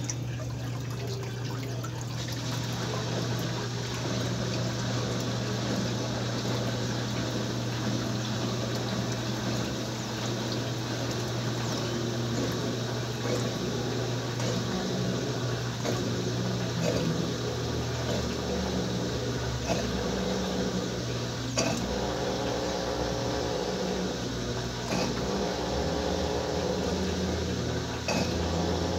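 Top-load washing machine filling its tub with water: rushing water over a steady low hum.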